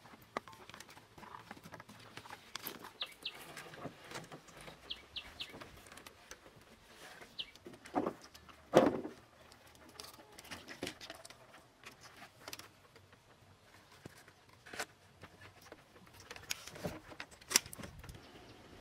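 Scattered knocks, creaks and rustles from wooden poles being handled and lashed together with vine, with birds chirping now and then. The loudest is a dull knock about nine seconds in.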